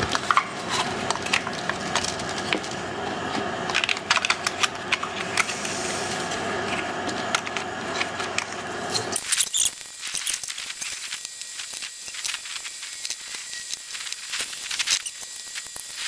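Hard plastic parts of a Dyson vacuum's cyclone assembly clicking and rattling as they are handled and fitted together, over a steady wind noise softened by a furry microphone windscreen. The wind noise drops away suddenly about nine seconds in, leaving sparse clicks.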